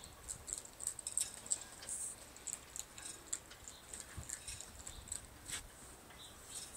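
River otter chewing and crunching the shell of a live Dungeness crab: a rapid, irregular run of small cracks and clicks.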